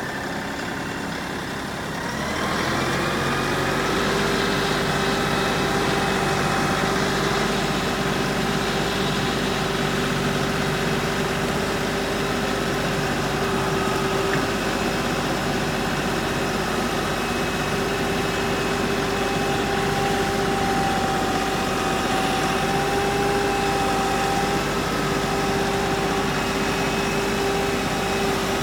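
LS XR3135 compact tractor's diesel engine running. It revs up about two seconds in, then holds at a steady speed.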